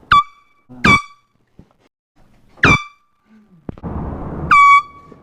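Hand-held air horn blasted four times: two quick short toots, another about a second and a half later, and a longer blast near the end. Each blast sags in pitch at the start and then holds one blaring note.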